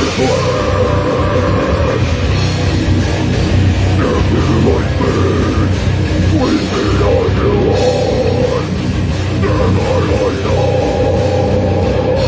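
Live grindcore: a band playing loud, distorted guitars over fast, dense drumming.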